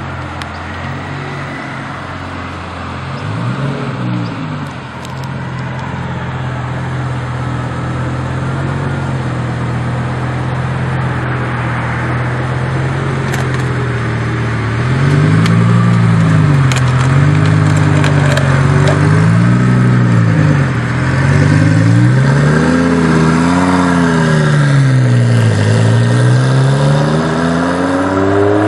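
Heffner twin-turbo Lamborghini Gallardo V10 running at a steady idle, with a brief rev a few seconds in. From about halfway it gets louder and is revved up and down again and again, with a longer rise and fall near the end and the pitch climbing once more at the close.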